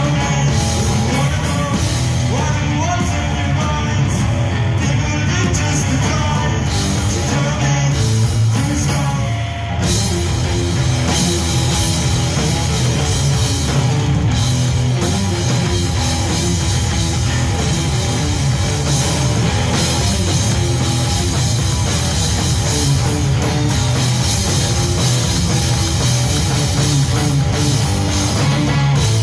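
Live rock band playing loud: electric guitars and a drum kit. The band drops back for a moment about nine seconds in, then comes back in full with heavy cymbals.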